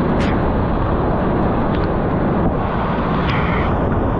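Loud, steady rush of whitewater rapids close around a kayak, with brief splashes just after the start and again about three seconds in.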